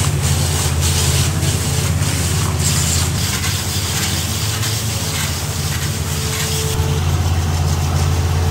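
Greenhouse roof-washing machine running: its pump unit hums steadily while its nozzles spray water onto the glass roof with a loud hiss. The spray hiss eases off about seven seconds in, leaving the machine's hum.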